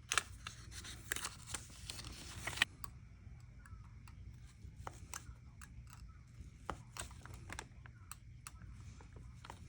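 Hobby cutting tools working on tiny model parts at a workbench. For about the first two and a half seconds there is faint scraping with sharp clicks, then scattered light clicks over a low steady hum.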